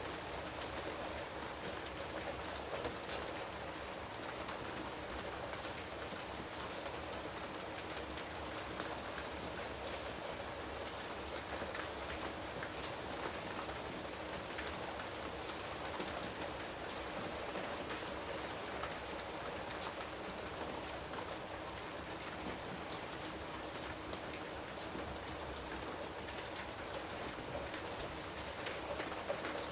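Steady jungle rain: a continuous hiss of rainfall with many individual drops pattering on foliage and surfaces.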